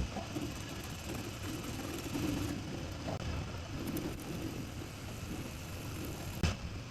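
Steady low hum and rumble of metal-workshop machinery, with a single sharp knock about six and a half seconds in.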